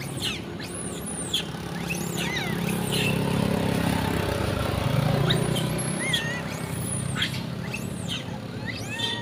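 A vehicle engine running, its hum growing louder towards the middle and easing off again, with many short, high-pitched arching squeals from long-tailed macaques chasing one another.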